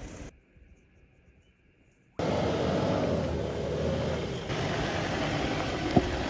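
Near silence for about two seconds, then a four-wheel-drive vehicle climbing a steep dirt track: steady engine and tyre noise, loud throughout, with a single knock near the end.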